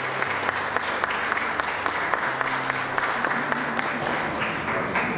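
A room full of people applauding, a dense round of clapping that begins to die away near the end.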